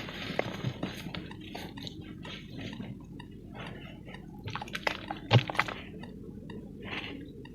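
Lumps of pure cement crumbling, a run of irregular crunching and crackling with small gritty clicks, and one sharper crunch about five seconds in.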